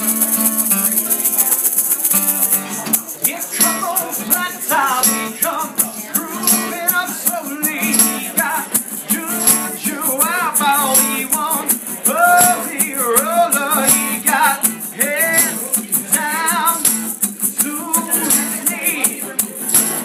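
Live acoustic guitar being strummed, with a shaker keeping a steady beat; from about three seconds in a voice sings over them.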